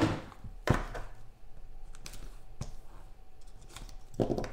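Hands handling a cardboard trading-card box on a desk: a sharp knock about a second in, a few small clicks and taps, and a duller knock near the end.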